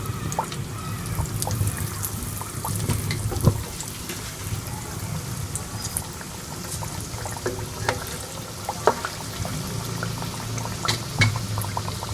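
Breaded chicken fillet frying in lightly heated oil in a kadhai: a steady sizzling hiss with frequent scattered pops and crackles.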